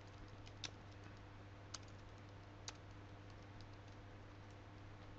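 Soft typing on a computer keyboard: scattered faint key clicks with a few louder keystrokes, over a low steady hum.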